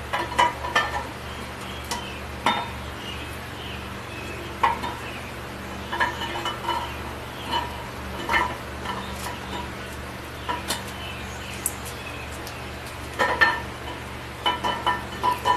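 Steel roller camshaft being eased by hand into the cam bearings of a Ford 460 big-block, giving scattered metallic clinks and taps as the lobes and journals touch the block, over a steady low hum.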